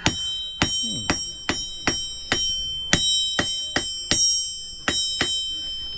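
Blacksmith's hammer striking iron on an anvil in a steady rhythm, about two or three blows a second, each blow leaving the anvil ringing.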